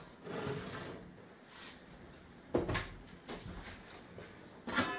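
A few knocks and clanks of a stainless-steel roasting pot and its domed lid being handled, with a sharper metal clank near the end that leaves the lid ringing.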